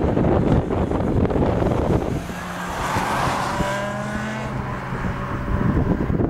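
A 2009 Honda CBR600RR's inline-four engine passes close by at moderate speed, ridden gently while the new engine is run in. Its note peaks about three seconds in, then drops in pitch as the bike rides away. Wind buffets the microphone before it arrives.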